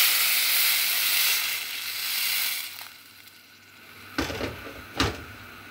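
Water pouring in a stream into a stainless steel pot holding salmon pieces and vegetables, a steady splashing rush that stops just under three seconds in. Near the end come two sharp knocks about a second apart.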